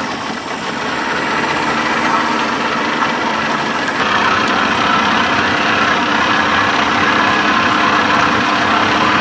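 Outboard motor idling steadily just after starting, a little louder and brighter from about four seconds in.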